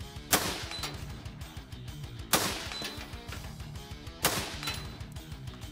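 Three rifle shots from an AR-style rifle, about two seconds apart, each with a brief ringing tail. Guitar music plays underneath.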